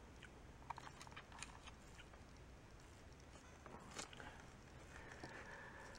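Near silence: room tone with a few faint scattered clicks and, near the end, a faint steady high tone.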